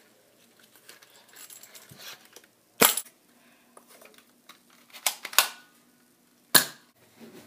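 Orange Nerf foam-dart blaster being handled, primed and fired: four sharp plastic clacks. One comes about three seconds in, two close together about five seconds in, and a last one near the end.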